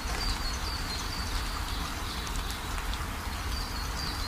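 A bird chirping repeatedly, short high chirps about once or twice a second, over a steady hiss and low rumble.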